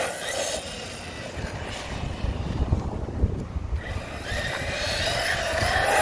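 Arrma Kraton 6S RC truck's brushless motor and drivetrain whining as it drives on concrete. The whine fades over the first second, and wind rumbles on the microphone while the truck is farther off. It swells again over the last two seconds as the truck comes back near.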